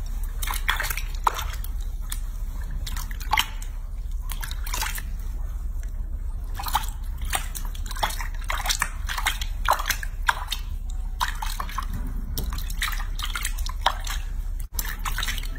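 Hands scooping and splashing bathwater in a small sink while washing a baby monkey: an irregular run of small splashes and drips.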